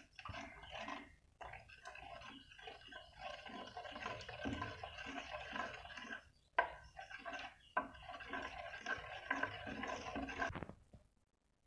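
Liquid kitchen mixture being sloshed and handled in a bowl or pan, a run of small irregular splashes and clinks, broken by two abrupt cuts and stopping suddenly near the end.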